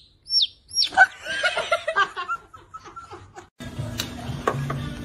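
A baby chick peeping twice, short sharp falling cheeps, followed by about two seconds of laughter. Background music starts abruptly about three and a half seconds in.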